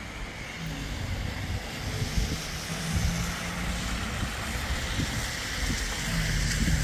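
A motor vehicle running, with a steady low engine hum under an even wash of road or wind noise that grows slightly louder toward the end.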